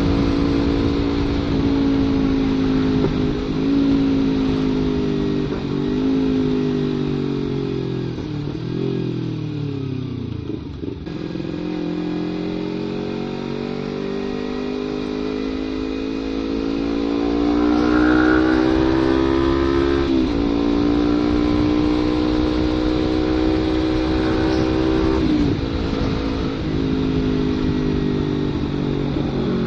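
Kawasaki Ninja 250 FI parallel-twin engine running through an aftermarket CLD header and Prospeed Black Series silencer. The revs fall away about a third of the way in, climb again, then drop suddenly twice later on.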